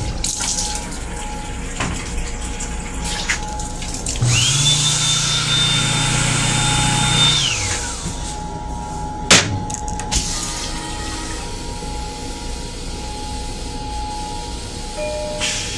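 M7 railcar restroom sink's water pump starting up with water running from the faucet: a motor tone rises quickly, holds steady with a low hum and spray hiss for about three and a half seconds, then winds down. A single sharp knock follows a second or so later.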